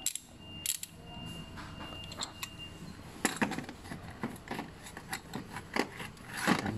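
Chrome sockets, bars and ratchet handle of a 1/2-inch drive socket set being handled in a plastic case: scattered, irregular metal clicks and clinks, busiest in the second half and loudest near the end.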